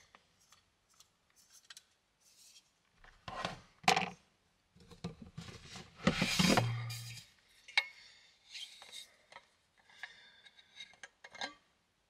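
Handling noises of camp cooking gear: rubbing, scraping and scattered clicks and knocks as a Jetboil stove and an insulated coffee bottle are picked up and opened, loudest about four and about six seconds in.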